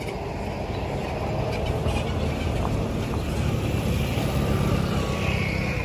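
A motor vehicle's engine running with a steady low rumble, growing somewhat louder through the middle.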